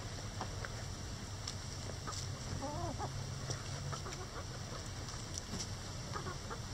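Backyard hens clucking quietly, with one short warbling call about three seconds in, over scattered faint clicks of beaks pecking a hanging cabbage. A low steady rumble runs underneath.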